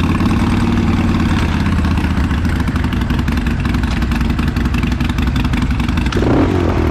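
Dirt bike engines idling steadily, with a short gliding sound about six seconds in.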